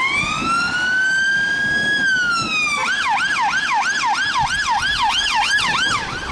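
Police car's electronic siren sounding. A slow wail rises and then falls, and just under three seconds in it switches to a fast yelp of about three sweeps a second.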